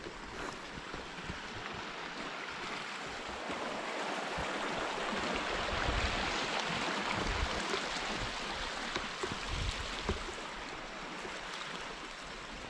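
Running water of a small mountain stream, a steady rush that grows louder toward the middle and eases near the end, with a few low thumps.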